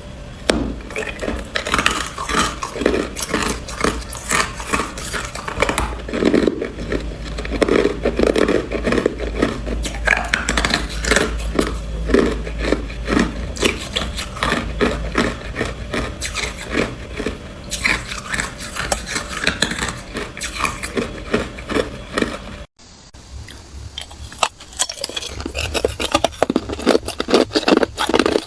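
Ice being bitten and chewed close to the microphone: a dense run of crisp, cracking crunches. The sound cuts out briefly about three-quarters of the way through, then the crunching comes back softer and builds up again.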